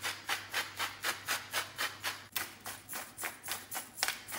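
Hand-turned spice mill grinding seasoning onto raw steak, a rhythmic rasping crunch of about four strokes a second.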